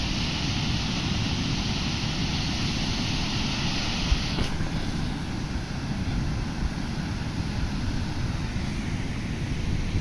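Caribbean surf breaking and washing up a sand beach: a steady rushing noise with wind rumbling on the microphone. The higher hiss of the wash eases about four seconds in.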